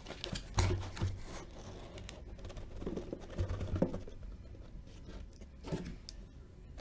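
Cardboard boxes of hockey cards being handled as an inner case is opened and the boxes pulled out: scraping and rustling with scattered clicks and a few dull knocks.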